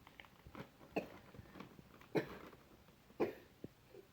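A person coughing: three short coughs about a second apart, with a couple of fainter ones between.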